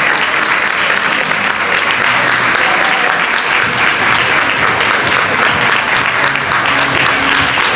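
Audience clapping continuously, a dense, even patter of many hands that keeps up without a break.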